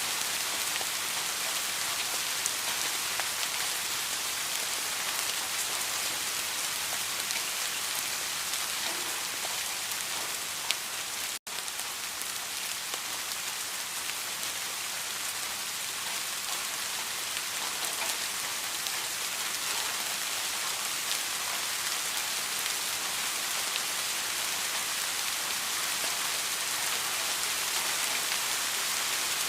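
Steady rain falling on a surface: an even hiss with scattered individual drops ticking through it. The sound cuts out for an instant about eleven seconds in, just after a single sharper click.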